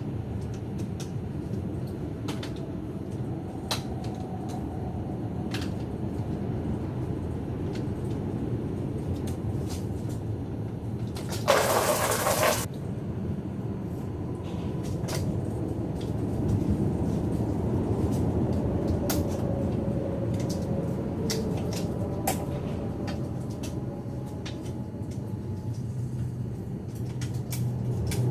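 Scattered metallic clicks and taps of hand tools working on a car's engine bay over a steady low rumble, with one loud burst of hissing about a second long near the middle.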